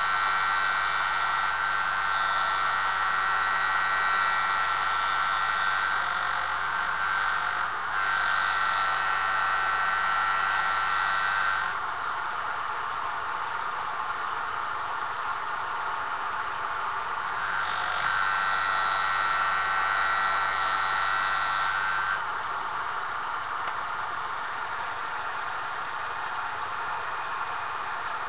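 Jooltool abrasive sharpening system running, with a steady motor hum and a high grinding hiss. The hiss grows louder for two long spells where a tool is held to the abrasive: one of about twelve seconds with a brief break near the middle, then one of about four seconds, with the machine running more quietly in between and after.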